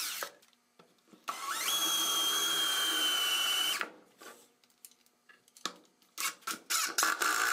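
DeWALT 20V cordless drill/driver running steadily for about two and a half seconds as it bores a pilot hole into plywood. After a pause it whirs in short start-stop bursts as it drives a wood screw into the hole.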